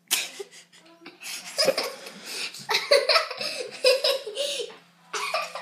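A short sneeze right at the start, which the child puts down to her cat, then a child giggling and laughing in bursts for several seconds.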